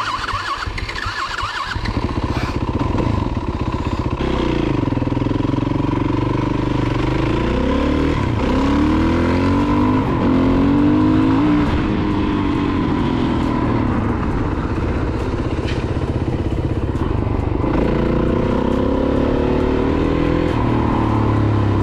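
Yamaha dirt bike's engine idling briefly, then pulling away about two seconds in and revving up and down as the rider accelerates and eases off, its pitch rising and falling over and over.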